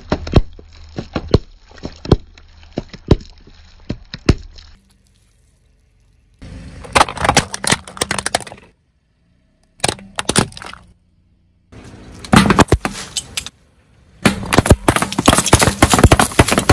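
A car tyre rolling over and crushing objects, in separate bursts with silent gaps between. First, sharp cracks and crunches as a row of boxed drink cartons is flattened; then short bursts of cracking as a plastic toy car gives way; near the end, a dense run of cracks and pops as a row of soda bottles and cans bursts.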